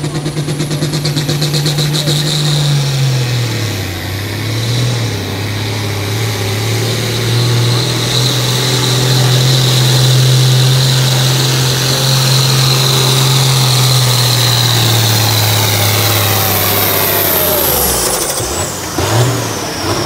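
Allis-Chalmers D21 diesel tractor pulling a weight-transfer sled at full throttle. The load pulls the engine note down about three seconds in. It then holds steady with a high whine above it, and near the end the note drops away as the pull stops.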